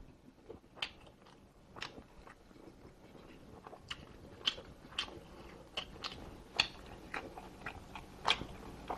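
Close-miked chewing of braised pork short rib: wet lip smacks and mouth clicks, irregular, a couple a second, coming more often from about halfway through.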